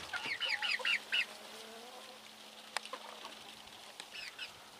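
Young chickens cheeping: a quick run of about six short, high peeps in the first second, a single sharp tick partway through, and two or three more peeps near the end.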